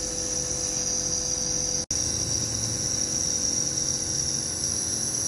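Compressor nebuliser running steadily, a constant high hiss over a low hum, as it pushes medicated mist through tubing into a nebuliser cup held at a cat's face. The sound drops out for an instant about two seconds in.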